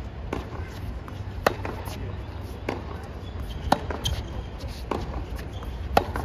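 Tennis rally on a hard court: rackets striking the ball, a sharp, loud pock about every two seconds from the near player's groundstrokes, with softer pocks about halfway between them, over a low steady background rumble.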